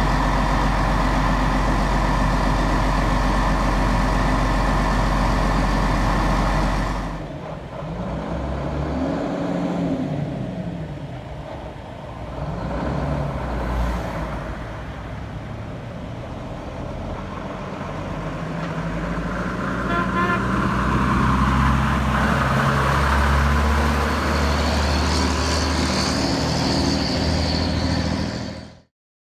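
Diamond T 980 tank transporter's Hercules six-cylinder diesel engine idling steadily. After an abrupt cut about seven seconds in, the same truck is driving along a road with cars passing, growing louder as it comes close, then pulling away.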